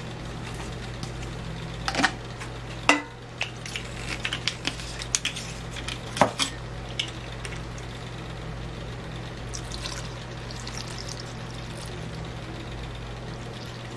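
Handling knocks and clicks as a chainsaw body is tipped on the bench and a fuel bottle and plastic funnel are set in place, then fuel trickling through the funnel into the saw's fuel tank near the end, over a steady low hum.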